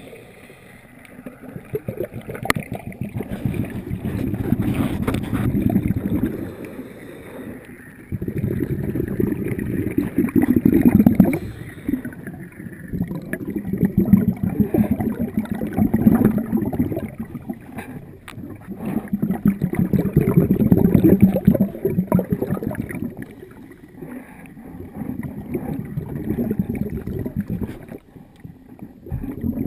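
Underwater bubbling and rushing from a diver's exhaled air, swelling and fading every five or six seconds in a steady breathing rhythm.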